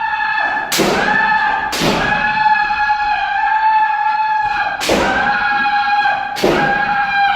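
Kendo practitioners shouting long, held kiai, broken by four sharp cracks of bamboo shinai striking head protectors together with stamping footwork.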